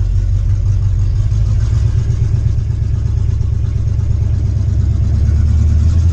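Small-block Chevy V8 with headers and an Edelbrock AVS2 carburetor running steadily, heard from inside the truck's cab, getting slightly louder near the end.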